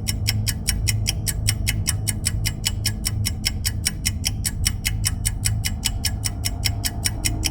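Background music built on a steady fast ticking, about six ticks a second, over a low sustained drone.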